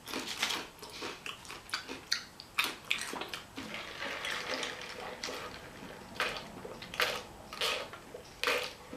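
Close-miked wet chewing and mouth smacking of someone eating a burrito bowl: many short, sharp smacks at an irregular pace.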